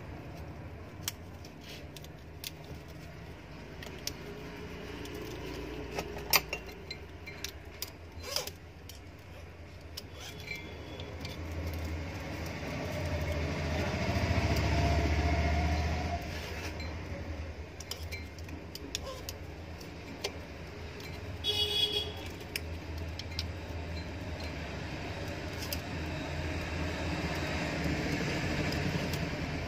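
Scattered light clicks and jingling of enamelled copper winding wire as it is handled and pressed into a motor stator's slots. A low rumble of traffic swells and fades around the middle, and there is a brief higher-pitched sound a little later.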